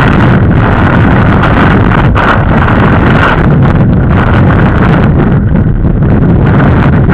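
Loud, steady wind noise buffeting the microphone of a camera on a road bike riding at speed.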